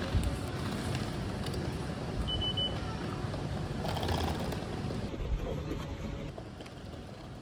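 Steady rumbling noise of a vehicle in motion, with three short high beeps about two and a half seconds in.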